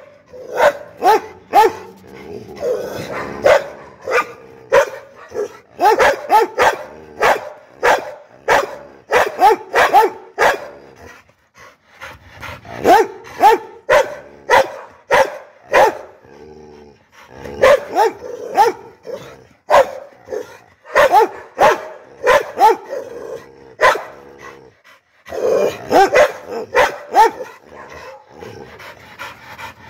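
Pit bull barking angrily in volleys of sharp, loud barks, about two a second, with short breaks between volleys; the barking dies down near the end.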